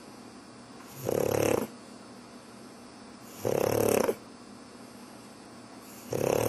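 Pug snoring: three loud snores, each under a second long, coming about every two and a half seconds.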